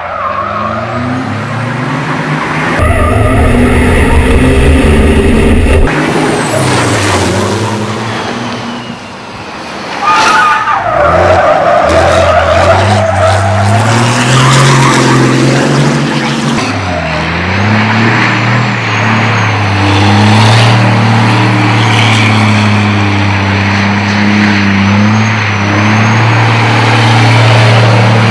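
Diesel engine of a MAN race truck revving hard while its rear tyres spin and squeal in a smoky burnout and donuts. A shrill tyre screech comes in sharply about ten seconds in. Over the last ten or so seconds the engine is held at a steady high note.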